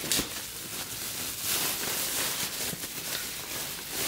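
Thin plastic packaging bag rustling and crinkling as it is handled and pulled back off a bicycle wheel, with a few sharp crackles.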